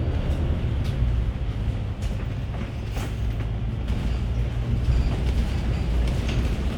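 Bus interior on the move: steady low engine and road rumble, with occasional light rattles.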